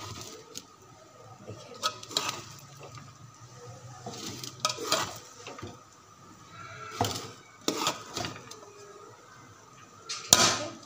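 Metal ladle scraping and clanking against a metal cooking pot while freshly steamed rice is turned over and mixed, a stroke every second or two, the loudest near the end.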